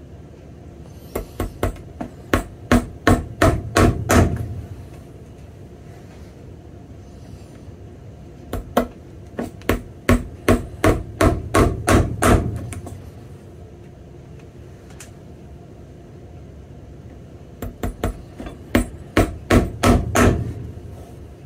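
Three runs of quick hammer taps, about ten in each with pauses between: a cobbler's hammer nailing a Dr. Sole rubber half sole onto a boot at the waist.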